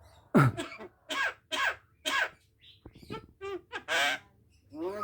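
Javan myna giving a rapid run of short, harsh calls, about a dozen in all, some dropping in pitch; the loudest comes about half a second in.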